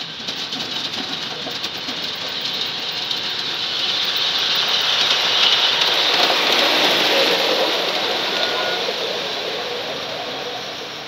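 Model trains running past on an outdoor garden-scale track: a steady rolling rush of wheels and motors that grows louder to a peak about six seconds in, then fades as the trains move away.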